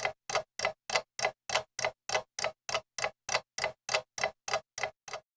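Rapid, even clock-like ticking, about three ticks a second, with dead silence between the ticks: a ticking sound effect.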